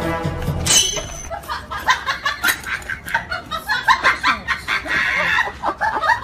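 A domestic cat making a rapid run of short, clucking calls, several a second, starting about a second in.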